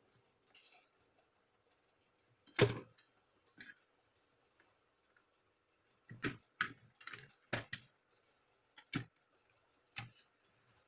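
Plastic snap locks of a Dell Inspiron laptop's case clicking as the panel is pried loose: about nine sharp, irregular clicks, the loudest about two and a half seconds in, most of the rest bunched in the second half.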